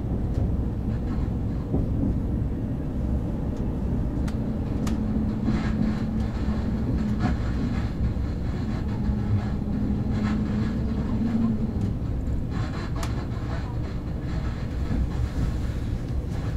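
Inside the cabin of a KTX high-speed train running along the line: a steady low rumble of wheels on rail with scattered faint clicks. A low steady hum joins in for several seconds in the middle.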